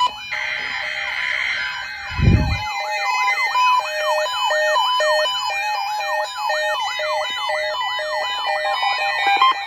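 An electronic siren sweeping rapidly up and down, about three sweeps a second, over steady stepping synthesized notes, with a short low boom about two seconds in.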